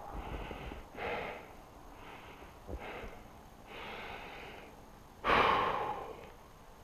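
A person breathing hard in a few separate noisy breaths, close to the microphone. About five seconds in comes one much louder, sudden exhale that fades over about a second.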